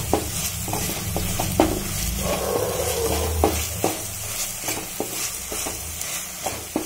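Wooden spatula scraping and tapping against a kadai, stirring onion-garlic-ginger masala paste mixed with curd as it fries in oil, with a light sizzle underneath. The spatula strikes come in an irregular run, roughly two a second.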